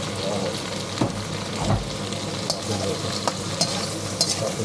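A stir-fry sizzling in a hot pan while it is stirred, with a spatula scraping and knocking against the pan several times.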